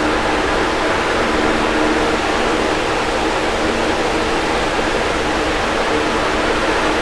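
Electric fan running steadily: an even rush of moving air with a faint steady hum underneath.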